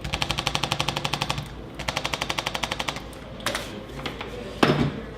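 Arthrostim chiropractic adjusting instrument rapid-firing against the spine to loosen the joints. It goes in two runs of fast, even taps, many a second, with a short pause between them. Two single louder knocks follow near the end.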